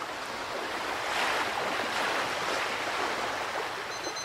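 Surf washing onto a sandy beach, a steady hiss of breaking waves that swells for a second or two. Just before the end a high electronic beep begins.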